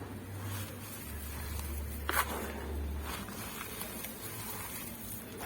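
Hands pressing and squeezing dry powdered charcoal, giving squeaky, gritty crunches, the sharpest about two seconds in.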